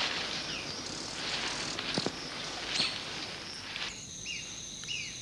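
Subtropical forest ambience. For the first few seconds a rough hiss with a sharp click about two seconds in, then a steady high insect trill with short falling chirps repeated several times.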